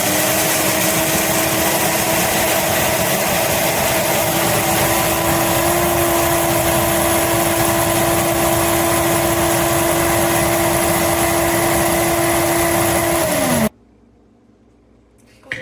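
PRASKY high-power countertop blender motor running at steady full speed with a high whine. It cuts off abruptly about 14 seconds in, the stop-mid-blend fault the owner complains of. A short click follows near the end.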